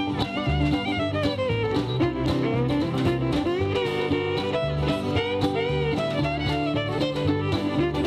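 Live acoustic country string band playing an instrumental passage with a steady beat: fiddle and acoustic guitar over a walking upright bass.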